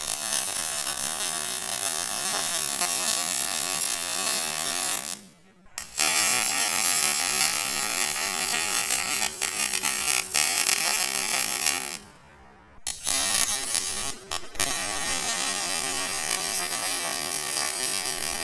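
MIG welder arc crackling and buzzing as it lays beads on steel. The arc stops briefly about five seconds in and again about twelve seconds in, then resumes each time.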